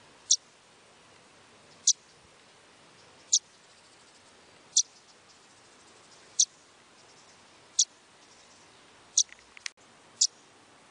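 A bird repeating a single short, high chirp about every one and a half seconds, evenly spaced, eight times.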